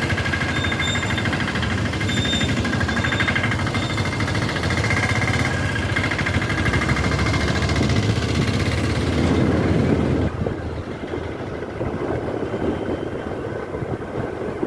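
Scooter engine running while being ridden, with road and wind noise. About ten seconds in, the sound changes abruptly and becomes quieter and duller.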